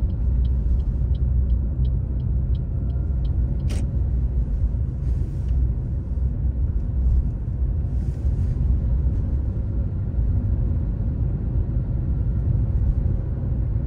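Inside a car driving along: steady low engine and road rumble, with the turn indicator ticking about three times a second until it cancels about three seconds in. A single sharp click follows just after.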